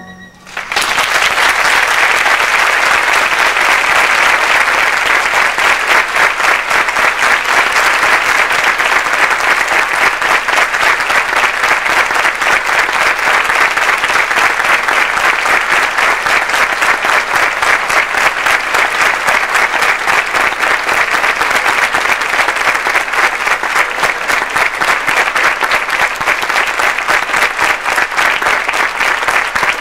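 Audience applauding, the clapping swelling in about half a second in and then holding loud and steady.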